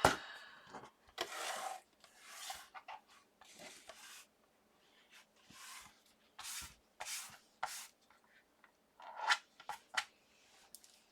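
Card stock die cuts being handled: a string of short paper rustles and scrapes, about a dozen, as the pieces are slid and gathered.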